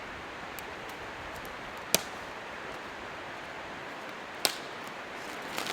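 Campfire burning with a steady hiss, and two sharp pops of burning wood, about two seconds and four and a half seconds in.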